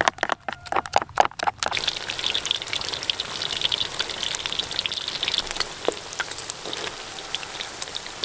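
Battered pork rib pieces deep-frying in hot oil in a wok: a dense, steady sizzle and crackle that starts about a second and a half in. Before that comes a quick run of wet clicks and slaps from a spoon stirring thick batter in a plastic bowl.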